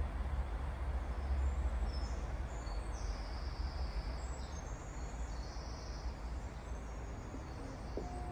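Outdoor garden ambience: a steady low rumble with faint high-pitched bird chirps over it. A few steady musical notes come in at the very end.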